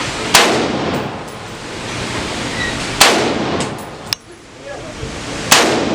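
Three single gunshots fired slowly, about two and a half seconds apart, in deliberate one-shot-at-a-time aimed fire. Each shot is a sharp crack with an echoing tail.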